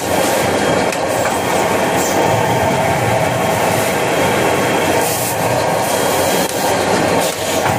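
Automatic kitchen towel multi-roll packing machine and its conveyor running steadily: a loud, continuous mechanical clatter. There are brief hisses about two seconds in and about five seconds in.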